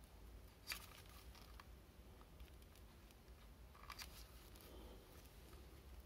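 Faint handling noise: a few soft clicks as gloved hands push multimeter test probes into a small voltage-reference board, one about a second in and a small cluster about four seconds in, over a low steady hum.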